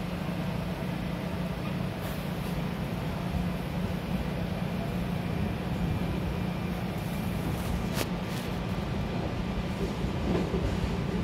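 Interior ride noise of a SEPTA Regional Rail electric railcar in motion: a steady rumble with a continuous low hum. One sharp click about two-thirds of the way through.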